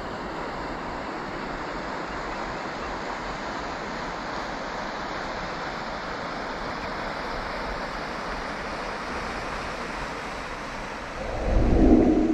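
A steady rushing noise of outdoor ambience, ending in a brief louder low rumble about a second before the end.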